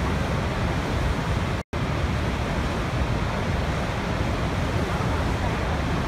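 Steady heavy rush of water from a large waterfall, Niagara's Horseshoe Falls, pouring over its crest. The sound cuts out for an instant a little under two seconds in.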